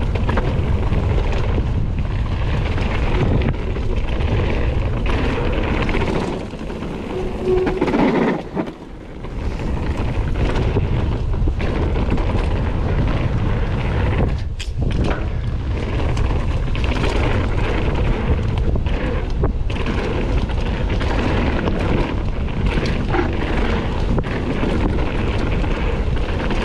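Kona Process 153 full-suspension mountain bike being ridden along a dirt trail: a steady rush of wind buffeting the microphone with tyre noise and frequent knocks and rattles from the bike over bumps, easing briefly twice.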